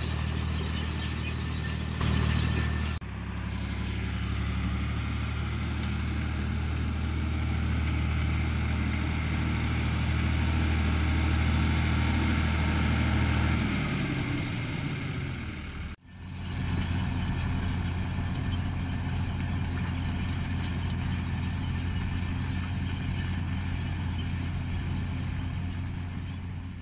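John Deere 3350 tractor's six-cylinder turbo diesel engine running steadily under load while pulling a grain drill. Its note drops about 14 seconds in, and the sound breaks off abruptly twice, about 3 and 16 seconds in.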